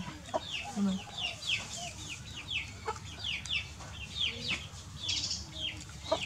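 Birds chirping: a steady run of short, falling chirps, about two or three a second, with a few sharp clicks among them.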